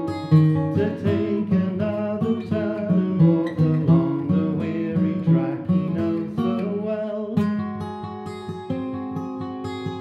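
Acoustic guitar fingerpicked in a folk style, a quick run of plucked notes that thins to longer ringing notes about three-quarters of the way through.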